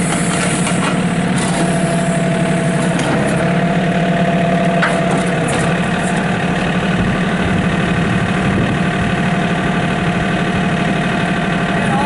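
2001 John Deere 4200 compact tractor's diesel engine running steadily while the tractor is driven and turned on gravel.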